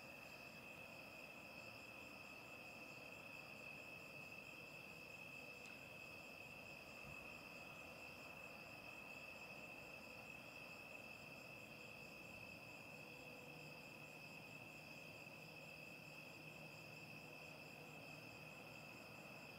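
Faint, steady night chorus of crickets trilling, a continuous high-pitched ring.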